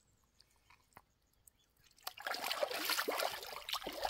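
Quiet for about two seconds, then water splashing and trickling in irregular spurts.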